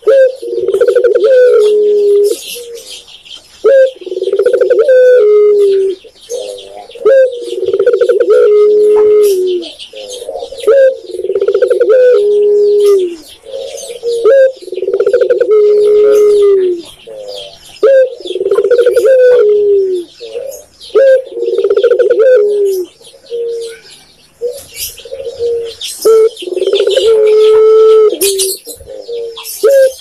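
Spotted dove (tekukur) cooing its song over and over: a few short notes ending in a longer, falling note, repeated about every two seconds.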